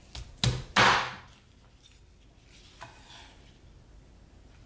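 Cleaver chopping through roasted chicken onto a wooden cutting board: three quick chops in the first second, the third the loudest, then a lighter knock about three seconds in.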